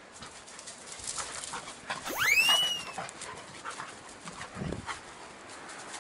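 An edited-in sound effect: a loud, whistle-like tone that shoots up in pitch and then slides slowly down over about a second, a couple of seconds in. Under it, the rustle and patter of the golden retriever puppy running on the grass, with a soft thud near the end.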